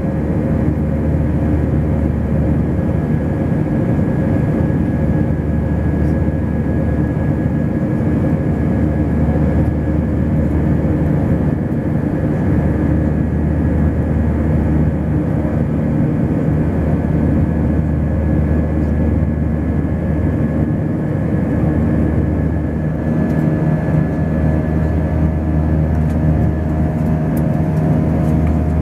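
Airbus A320 jet engines heard from inside the passenger cabin at takeoff power: a loud, steady roar with a low rumble and a few held tones. About 23 seconds in, a new, slightly higher tone comes in.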